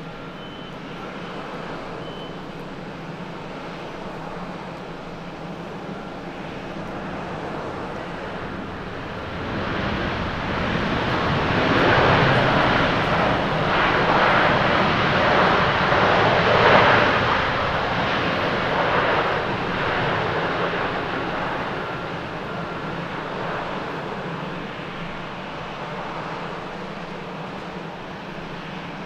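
Boeing 787-9 jet airliner rolling out after touching down on a wet runway: the roar of its jet engines and the hiss of tyre spray swell to their loudest about halfway through, then fade as it passes.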